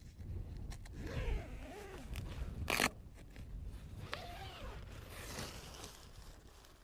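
Zip on a Lanshan 1 ultralight tent's outer door being pulled open in several drags, with one short, sharp rasp about halfway through.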